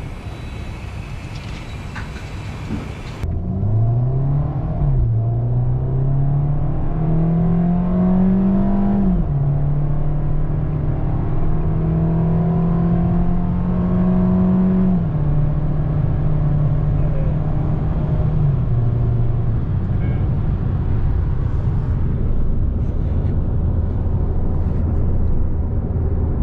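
Small car engine pulling hard as the car accelerates, its pitch climbing and then falling sharply twice as the gears are shifted up. It then holds a steady pitch and eases down in steps to a low steady drone.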